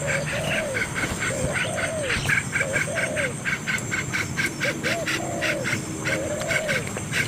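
Animal calls: a fast, steady run of short high chirps, about seven a second, with lower arched calls repeating every second or two.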